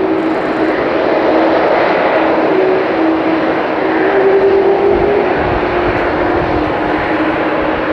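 McDonnell Douglas MD-11F trijet's jet engines running at high power for takeoff: a loud, steady roar with a droning tone that shifts up and down in pitch.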